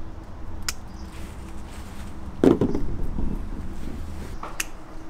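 Hand pruning shears snipping through apple-tree twigs, with two sharp clicks of the blades. A louder rustling thump of leaves and branches comes about halfway through.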